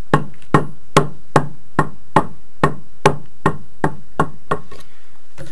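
A mallet tapping a white masonry block about twelve times in an even rhythm, roughly two and a half knocks a second, stopping a second before the end. The knocks bed the block into its adhesive so that the excess glue squeezes out of the joint.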